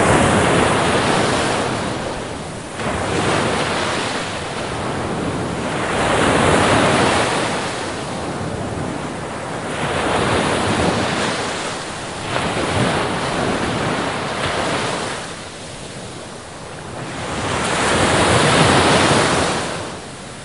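Ocean waves: a steady rushing surf noise that swells and recedes in slow surges every few seconds.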